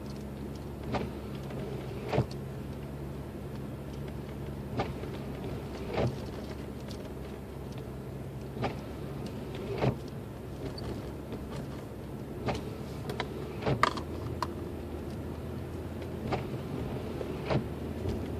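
Cabin sound of a Lexus IS250 climbing a snowy hill: the 2.5-litre V6 hums steadily over tyre and road noise, with pairs of short knocks about every four seconds.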